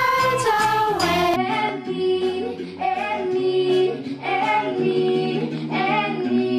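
A cappella vocal music: a girl's lead voice over a group of voices holding sustained harmony notes, the sound changing abruptly about a second and a half in.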